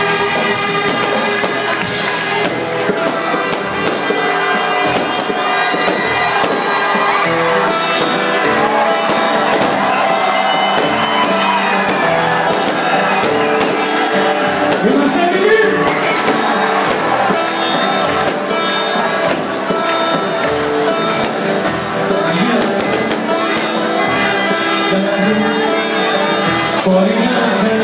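Loud live band music at a concert, with a singing voice over it and crowd noise mixed in, steady throughout and thin in the bass.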